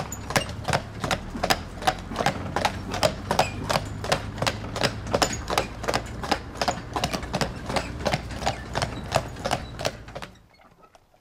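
Hooves of a Postier Breton draught horse clip-clopping on a paved lane as it pulls a wagon, a steady run of about three to four strikes a second over a low rumble. The sound stops suddenly about ten seconds in.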